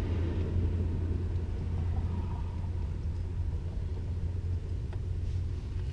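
A steady low hum over a rumble that does not change, from some machine that is running.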